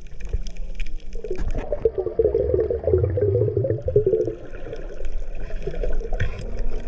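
Underwater gurgling and bubbling of water heard on a submerged camera, loudest from about one second in to about four and a half seconds in, with scattered faint clicks.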